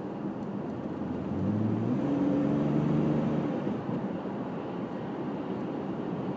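2001 Jeep Grand Cherokee engine heard from inside the cabin over steady road noise. About a second in it pulls harder and its note climbs and grows louder for about two seconds, then eases back to a steady cruise.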